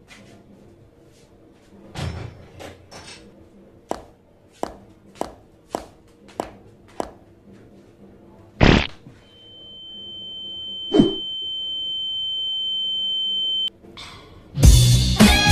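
Light, evenly spaced footsteps on a hard floor, then a heavy thump and a second smaller one. A steady high-pitched tone swells for a few seconds and cuts off suddenly, and loud music starts near the end.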